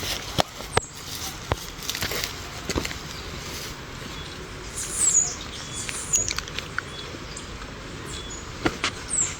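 Birds chirping, with high, quickly falling chirps about five seconds in and again near the end, over scattered sharp taps and clicks.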